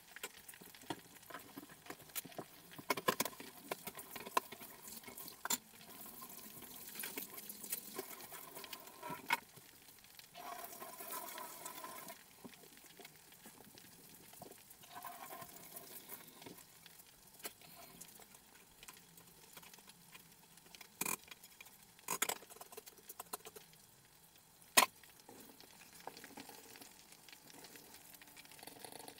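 Kitchen work: scattered clinks and knocks of utensils and cookware against a faint background, the sharpest knock coming about 25 seconds in.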